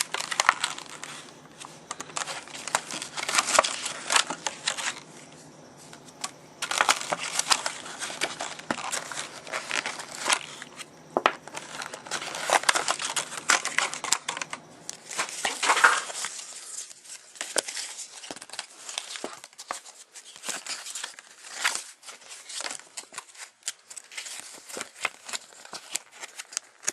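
Stiff plastic clamshell blister packaging crackling and crinkling in irregular flurries as it is cut and pulled open by hand.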